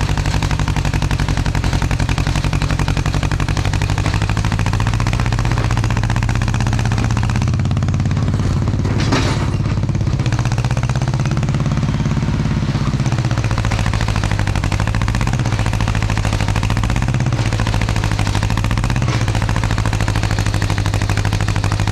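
Kubota KX040-4 mini excavator's diesel engine running close up under working load, a steady clattering drone. Its pitch sags and recovers slightly as the hydraulics dig, with one brief sharp noise about nine seconds in.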